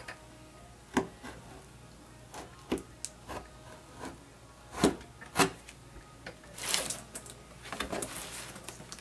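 Utility knife cutting through a corrugated plastic sign board along a traced line: irregular sharp clicks and short scraping strokes, with a longer scraping rustle of the plastic sheet near the end.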